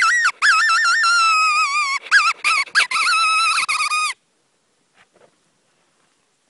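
Predator call sounding a loud, wavering, squealing distress cry in long pitch-wobbling wails broken by short gaps, sliding lower as it goes. It stops about four seconds in, followed by near silence with a few faint ticks.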